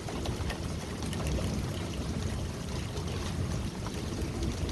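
Hail falling with rain: many small, irregular ticks of hailstones striking over a steady hiss. A low, uneven rumble of wind on the microphone runs underneath.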